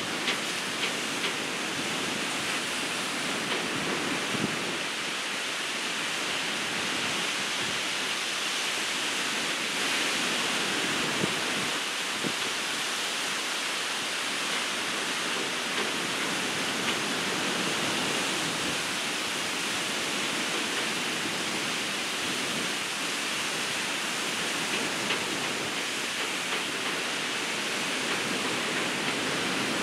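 Ocean surf breaking and washing ashore: a steady rush of noise that swells slightly from time to time.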